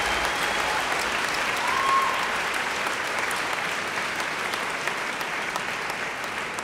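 Audience applauding in a large hall, fading gradually toward the end.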